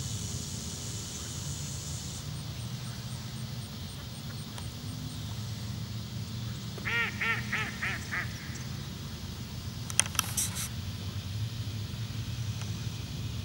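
Mallard quacking: a run of about five quacks about seven seconds in, over a steady low rumble. A brief sharp high sound follows about three seconds later and is the loudest thing heard.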